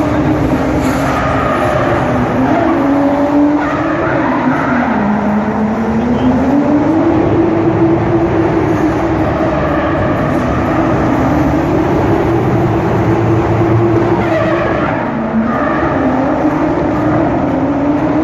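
Drift car engine held at high revs, its pitch dropping and climbing back twice, with tyres skidding and squealing through the slides.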